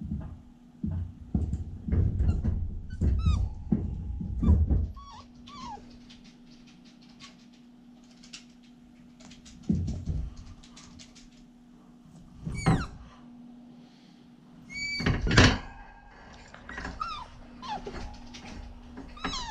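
Siberian husky puppy giving several short, high-pitched whines and yips. Dull thumps and rubbing come from the puppy pressing against the camera; they cluster in the first few seconds and come again about two-thirds of the way through.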